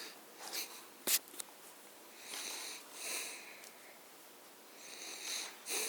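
A person's soft breaths in through the nose, three in all, close to the microphone. A sharp click comes about a second in.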